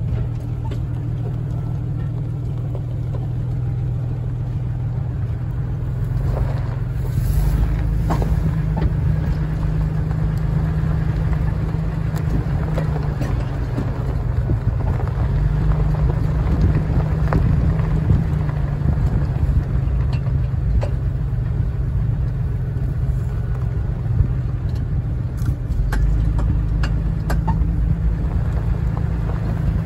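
A vehicle driving slowly on a rough dirt trail, heard from inside the cab: a steady low engine and tyre rumble with scattered small clicks and rattles.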